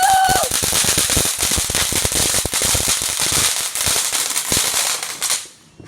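A firework crackling and popping rapidly with a hiss, then cutting out about five and a half seconds in. A short high cry comes over it at the very start.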